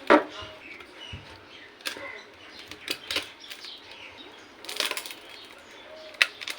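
Irregular clicks, taps and light knocks of small tools and parts being handled while a bent mobile phone is worked on, with a louder clatter near the start.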